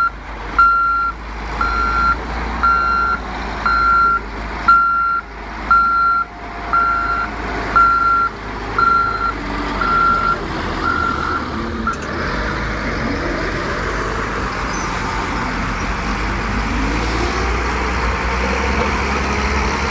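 A construction vehicle's reversing alarm beeping about once a second over a low diesel engine drone; the beeping stops about twelve seconds in and a louder, steady machine noise takes over.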